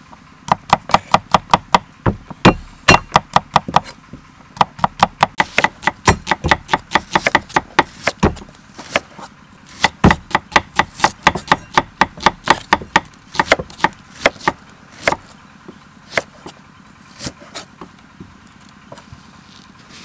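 Kitchen knife chopping on a thick round wooden chopping block: quick runs of sharp taps, several a second, with short pauses between runs, as garlic cloves and then an onion are sliced.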